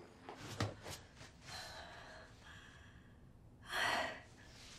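A woman's breathing, close by: soft breaths, then one loud, short burst of breath into a tissue held to her nose and mouth about four seconds in. A sharp knock sounds about half a second in.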